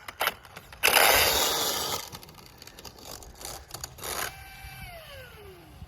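Traxxas Sledge RC truck's electric drivetrain with a stripped gear: a burst of harsh grinding and rattling as throttle is applied and the broken gear teeth fail to mesh, then a few clicks, then the motor's whine falling steadily in pitch as it spins down freely. The gear's teeth are gone, so the motor turns without driving the wheels.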